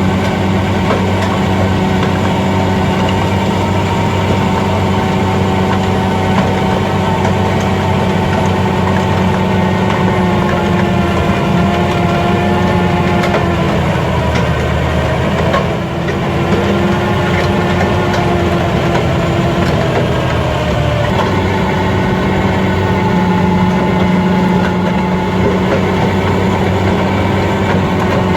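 Large farm tractor's diesel engine running steadily, its pitch drifting slightly; the sound changes abruptly about two-thirds of the way through.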